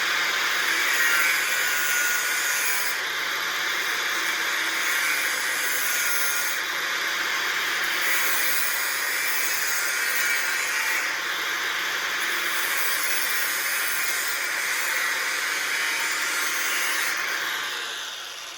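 A steady, even hiss from shop work on the metal sculpture, holding level and fading out near the end.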